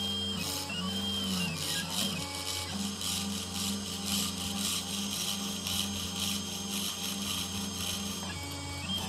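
Desktop CNC router milling a copper-clad PCB with an engraving bit: the spindle runs with a steady hum and hiss while the stepper motors whine in steady tones. About a second in the whine glides up and back down as the axes speed and slow through a curve in the track.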